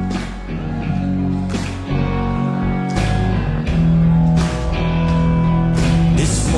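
Rock music without singing: electric guitar and bass over a drum beat, an instrumental passage between sung lines.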